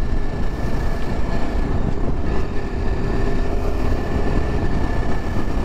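Yezdi Adventure motorcycle's single-cylinder engine running steadily while riding on the road, under heavy wind rumble on the microphone.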